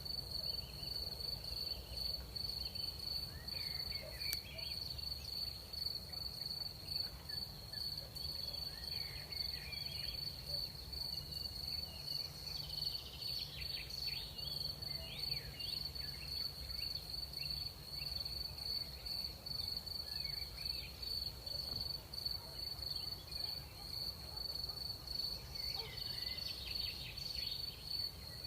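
Crickets trilling steadily in a night chorus, one high, unbroken pulsing trill over a low rumble of background noise. Short clusters of other chirping calls come and go several times.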